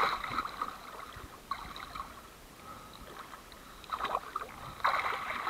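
Water sloshing and splashing at the surface close to the camera, in irregular bursts with a quieter stretch in the middle.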